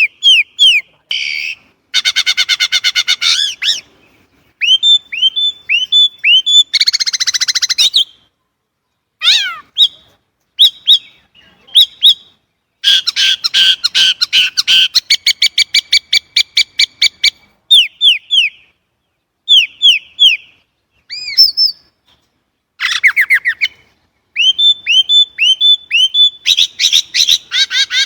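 Chinese blackbird (Turdus mandarinus) singing a loud, varied song. Runs of repeated down-slurred whistled notes alternate with fast buzzy trills and rattling, chattering phrases, with brief pauses between the phrases.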